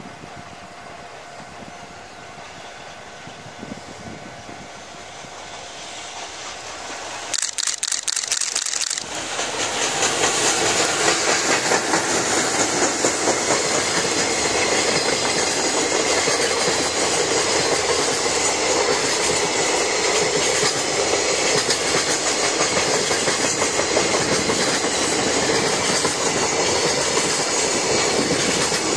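A JR Freight container train hauled by an EF210 electric locomotive comes closer, growing louder. A quick run of sharp clicks comes about eight seconds in. Then the long line of container wagons rolls steadily past with the clickety-clack of wheels over rail joints.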